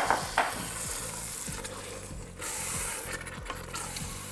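Diced shark meat sizzling as it goes into a pan of hot curry paste, with two sharp knocks near the start and a louder burst of sizzling about two and a half seconds in.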